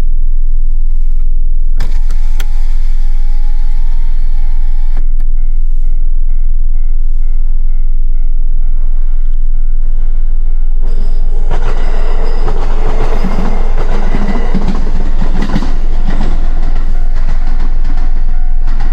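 A Wakayama Line train passes through a level crossing. Its noise builds about eleven seconds in and runs for several seconds over a steady low rumble. Before it arrives, the crossing's warning signal repeats as an even, high tone.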